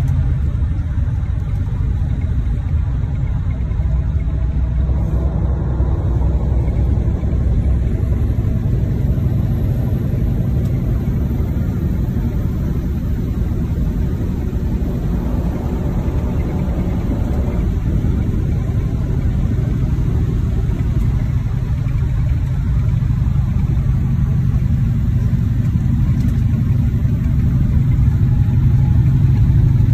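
Semi-truck's diesel engine and road noise heard from inside the cab while cruising on the highway: a steady low drone.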